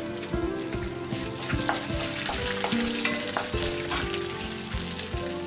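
Tempering of mustard seeds, chana dal, urad dal and dried red chillies sizzling in hot oil in a kadai, with a wooden spatula stirring and scraping through it. Scattered clicks sound throughout.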